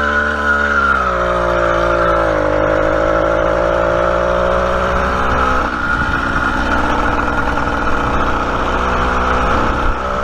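Small motorized-bicycle engine running under way. Its pitch climbs in the first couple of seconds and holds, then about halfway through the steady note gives way to a rougher, lower running sound.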